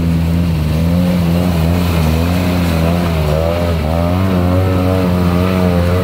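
Side-by-side UTV engine running under load as it works through a muddy creek bed, revs rising and falling in the second half.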